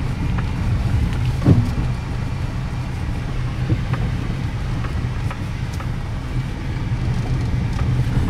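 Car cabin noise while driving: a steady low rumble of engine and road, with a brief knock about a second and a half in.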